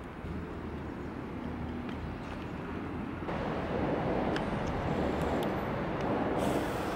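Outdoor street ambience: a steady rush of road traffic, louder from about three seconds in, with a few faint clicks.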